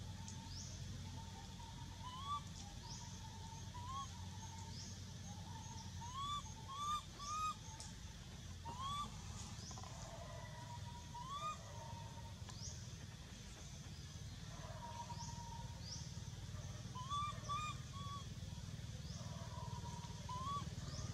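Outdoor ambience with birds chirping: short rising chirps scattered irregularly through, with quick high upward sweeps every second or two, over a low steady rumble.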